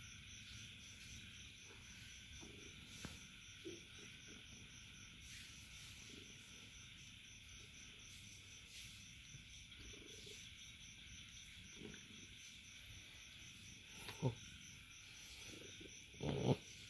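Faint, steady chirping of crickets, a quick regular pulse over an even hiss. Two brief louder sounds come near the end.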